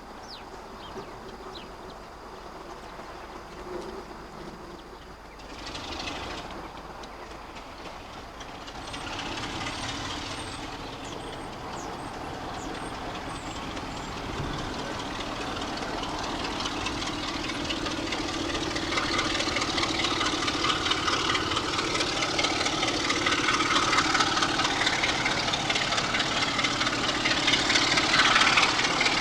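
A diesel-hauled train approaching, its engine and rail noise growing steadily louder, loudest near the end.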